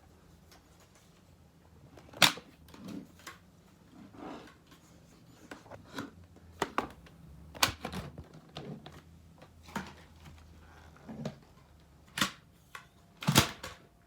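Irregular plastic clicks and knocks from a Dyson V7 Trigger cordless stick vacuum being handled at its dust-bin release catch. The sharpest knocks come about two seconds in and near the end.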